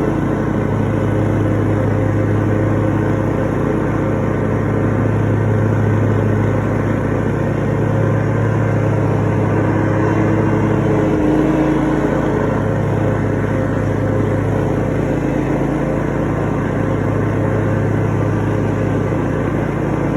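Scag V-Ride 61-inch commercial stand-on mower running steadily while mowing, a constant engine drone with a brief shift in its note about eleven seconds in.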